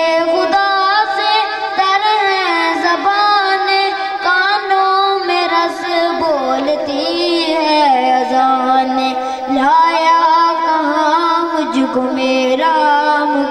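A boy singing an Urdu naat into a microphone, holding long notes that waver and glide in pitch.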